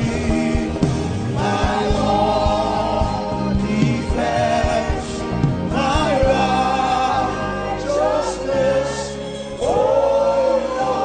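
Choir singing a slow gospel worship song over musical accompaniment, in sustained phrases.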